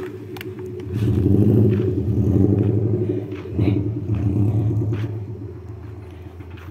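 Hyundai H1 campervan's engine running close by as the van moves slowly, a steady low hum that swells about a second in and fades gradually toward the end.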